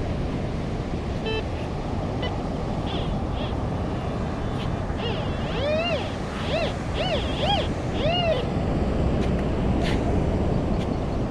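Steady wash of surf and wind noise. About six seconds in comes a run of five or six short tones that each rise and fall in pitch.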